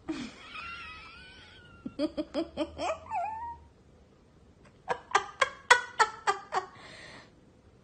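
A Boston terrier vocalizing: a wavering high whine, then two runs of short, quick yelps a couple of seconds apart.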